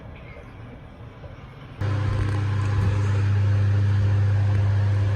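Iris Ohyama CDK842-W drum washing machine starting up about two seconds in with a sudden, loud, steady low hum from its motor or pump, which keeps running evenly.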